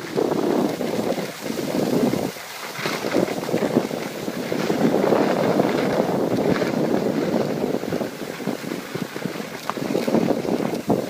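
Wind rushing over the microphone of a camera carried by a skier moving downhill: a rough, fluctuating rumble that eases briefly a little over two seconds in.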